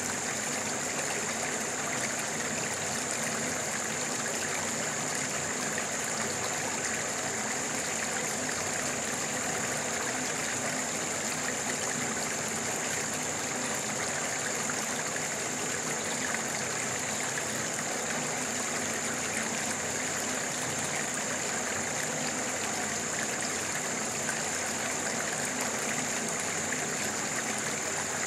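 Stream water flowing with a steady, unchanging rush, and a steady high-pitched hiss over it.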